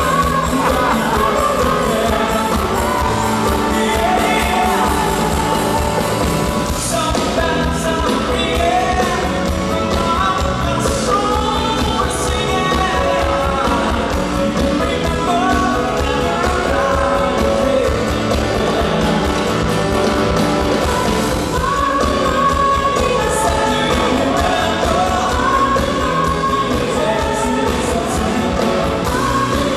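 Pop-rock song with a lead voice singing over a full band and a steady drum beat.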